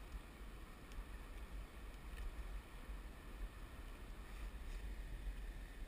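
Faint low rumble of a flowing river and wind, with a few light ticks about a second, two seconds and nearly five seconds in.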